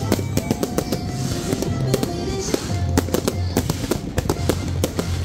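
Fireworks display exploding overhead in many sharp bangs in quick succession, with music playing underneath.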